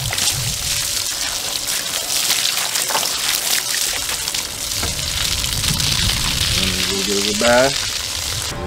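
Garden hose spraying water onto a catfish lying on a plastic table: a steady hiss of spray with splashing off the fish.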